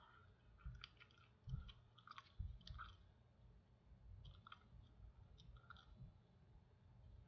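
Near silence with a few faint, scattered clicks and soft taps.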